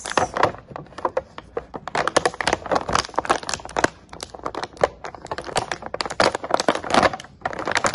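Clear plastic blister tray crinkling and crackling in irregular rapid clicks as hands flex it and pull an action figure out.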